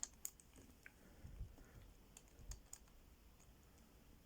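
Faint, irregular clicks of an Abus 158CS/65 combination padlock's number wheels being turned a step at a time while the shackle is held under tension. The wheel is being felt for its loose spot to decode the lost combination.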